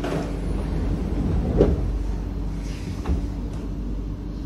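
Sliding saloon doors of a C151A MRT train closing, shutting with a thump about a second and a half in, followed by a softer knock about three seconds in. A steady low hum of the standing train runs underneath.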